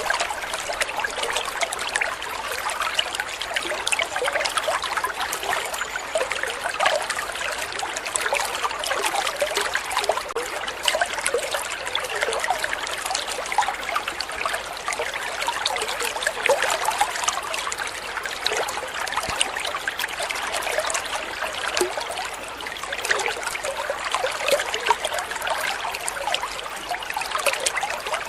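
Water trickling and splashing steadily down a small homemade waterfall built from a used water-dispenser gallon, a continuous patter of small drops and streams.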